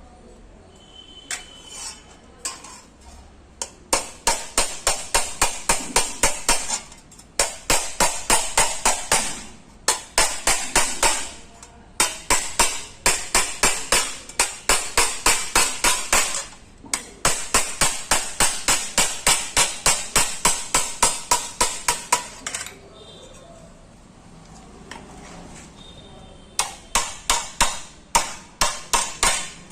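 Hand hammer panel-beating a dent out of a Maruti 800's steel body panel: quick metallic strikes, about four to five a second, in long runs broken by short pauses.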